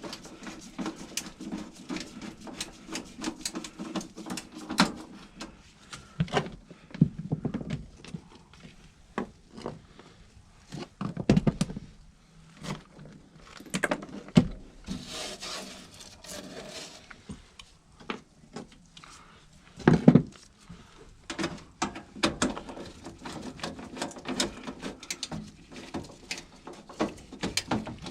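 Irregular clicks, knocks and rattles of a nut driver and sheet-metal parts being worked on a furnace's flue pipe and inducer motor, with a low hum in the first few seconds and again near the end.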